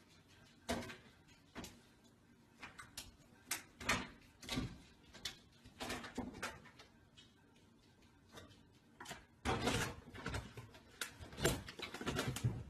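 Irregular knocks, taps and scrabbling as a cat's claws and paws work against an over-the-range microwave and the open cabinet door above it while it hangs and tries to climb in, busier and louder near the end.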